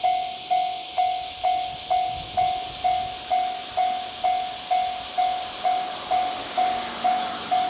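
Japanese railway level-crossing alarm ringing a single bell tone about twice a second, each ding sharp and then fading, over a steady high hiss. The crossing is warning of an approaching train.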